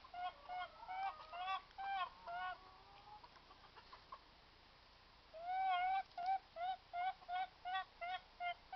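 A hen calling over and over in short honking notes, about three a second. The calls break off for a couple of seconds in the middle, then start again with one longer call and carry on in a steady quick run.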